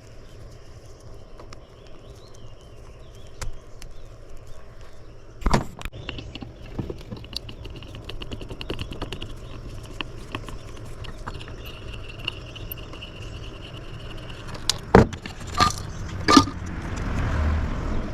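Small metal scrap parts clinking and rattling as they are handled, with a few sharp knocks: one about five seconds in and three close together near the end.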